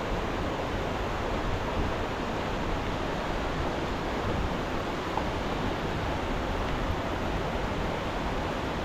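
Steady rushing roar of the Gufufoss waterfall, water pouring down without a break.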